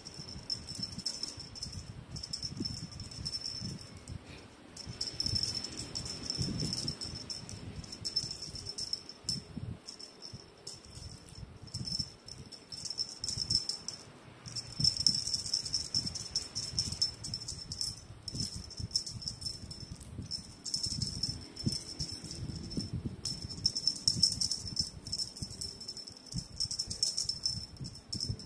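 A feather wand cat toy jingling and rattling as it is shaken over a kitten. The high jingle comes and goes with the toy's movement, over soft rustles and bumps from the kitten grabbing at it on the bedding.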